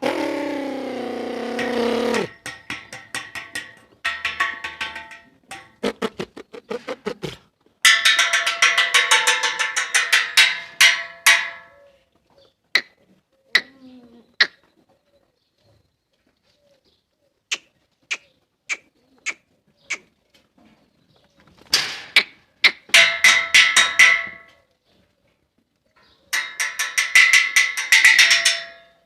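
Goats bleating: a lower, bending call, then a string of quavering, pulsed bleats of one to three seconds each, with silent gaps between them.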